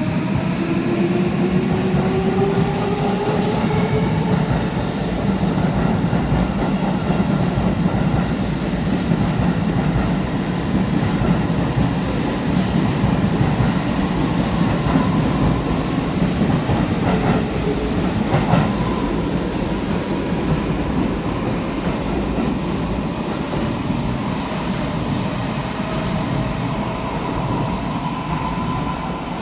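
16000 series electric multiple unit pulling out of an underground platform: its traction motor whine rises in pitch over the first few seconds as it accelerates, then a steady rumble of wheels on rails as the cars pass, with a few clicks past the middle.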